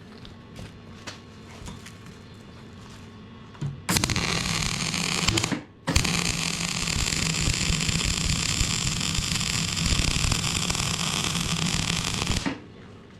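Electric arc welding: the arc crackles and hisses steadily with a low hum, in a short run of about a second and a half, then after a brief break a longer run of about six seconds that cuts off sharply.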